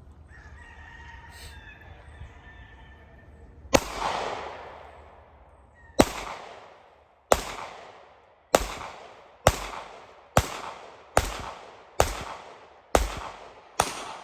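Ten gunshots fired one at a time: the first about four seconds in, then one roughly every second, picking up pace slightly. Each shot is followed by a fading echo.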